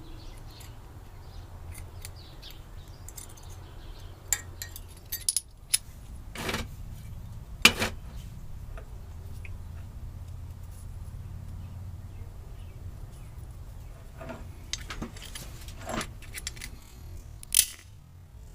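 Scattered sharp metallic clinks and taps from a forged steel flint-striker belt buckle, some of them loud, over a steady low hum.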